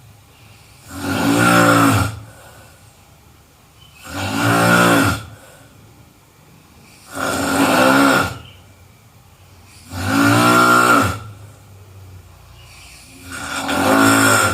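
A person snoring: five loud snores about three seconds apart, each lasting a little over a second.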